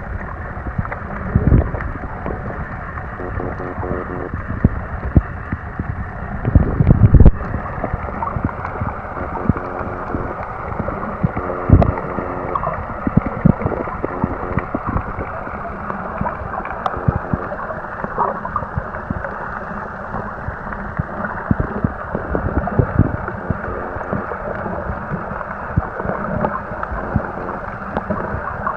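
Muffled underwater noise picked up by a submerged camera: a steady watery rush with frequent low knocks and thuds, the loudest a cluster about seven seconds in, and now and then a faint steady hum.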